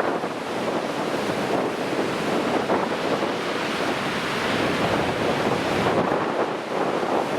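Strong wind on the back side of a typhoon buffeting the microphone over heavy surf breaking in a harbour, a steady rushing noise.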